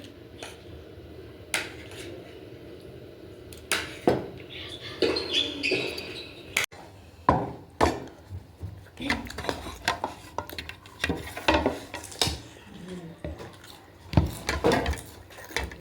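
Cutlery clinking and scraping against a plate or dish during a meal: scattered short clicks and knocks, with a rustling, noisy stretch around five seconds in.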